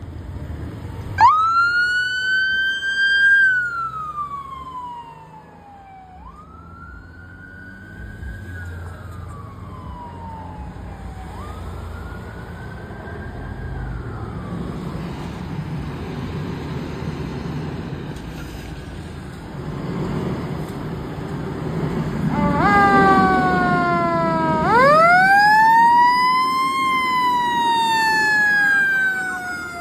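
Fire department sirens wailing: a tone that rises sharply and falls slowly three times, each fainter, then the low rumble of a fire engine pulling out, and near the end a louder siren rising and falling again with a second siren tone sweeping down alongside it.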